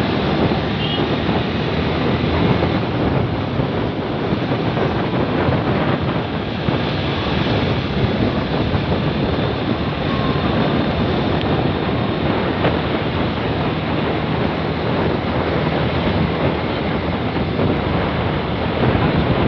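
Steady rushing noise of a moving vehicle on the road, mixed with wind buffeting the microphone.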